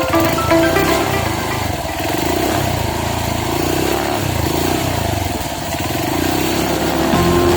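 Honda CRF motorcycle engine running under way, its revs rising and falling. Background music fades out in the first second and comes back near the end.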